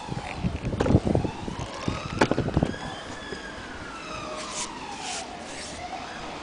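An emergency-vehicle siren wailing in a slow rise and fall. Several sharp clicks and knocks come through about a second in and again a little after two seconds.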